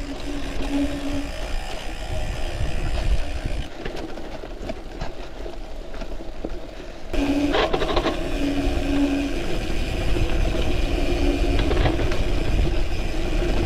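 Gravel bike's rear freewheel hub buzzing while coasting, stopping and starting in stretches as the rider pedals and freewheels. Under it, the tyres rumble over a rough, sandy trail and wind runs low on the microphone. The buzz drops out for a few seconds early on, then comes back loud about seven seconds in.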